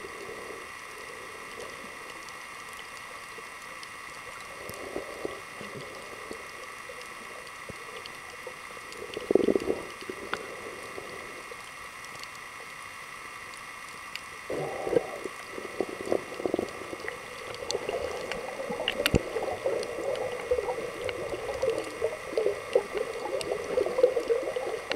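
Muffled underwater gurgling and sloshing of water against a submerged camera, with a steady faint hum behind it. It comes in short bursts about nine and fifteen seconds in, and grows busier and more continuous in the last third.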